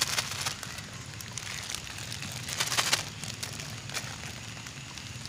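Plastic bag of coarse salt crinkling and rustling as it is handled over a bucket of water, with a few sharp crackles, the loudest about three seconds in.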